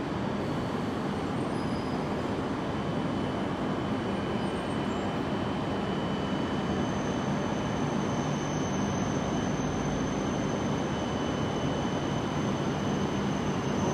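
Steady hum and rumble of a shinkansen station platform as an E6-series Komachi train creeps in from a distance; a faint high tone joins about halfway, and the sound grows slightly louder near the end as the train draws closer.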